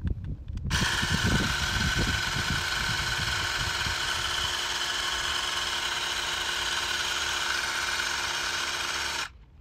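Xiaomi AirPumpX cordless tyre inflator's small electric compressor starting up under a second in and running with a steady whine while pumping air into a truck tyre, then cutting off suddenly near the end.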